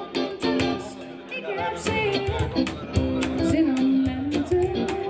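Live band: a woman singing long, wavering notes into a microphone, backed by electric guitar and a steady beat of hand percussion on a cajon.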